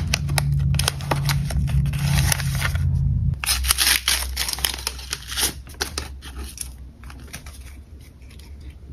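Paper-wrapped tea bags rustling and crinkling as fingers pick through them in a cardboard box, then a tea bag's paper envelope crinkling as it is torn open a few seconds in. The handling noise fades toward the end.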